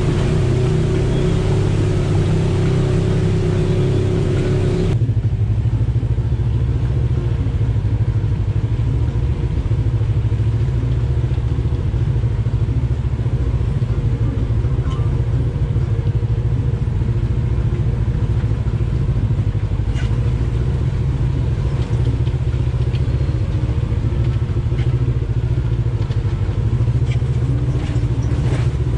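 Polaris RZR side-by-side's engine running steadily under way on a dirt trail, heard from the cab as a loud low drone. A brighter hiss riding over it cuts off suddenly about five seconds in, and a few faint clicks or rattles come near the end.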